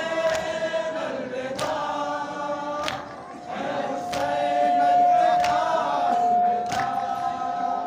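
A group of men singing a noha, a Shia mourning lament, together in a long, drawn-out line. It is punctuated by sharp strikes about every second and a quarter, the rhythm of matam, hands beaten on chests.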